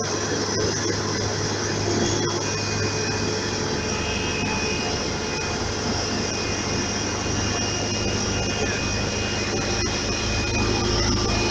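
Diesel engines of an asphalt paver and a road roller running steadily close by: a constant heavy machine drone, with a faint high whine that comes and goes.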